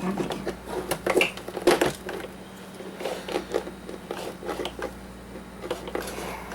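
Plastic and metal parts of a drip coffee maker being handled and pulled apart by hand: scattered clicks, taps and light knocks, with a faint steady hum behind.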